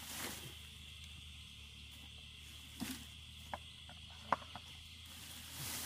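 Steady high-pitched insect drone, with a few scattered sharp clicks and snaps from dry leaves and twigs being handled in the second half.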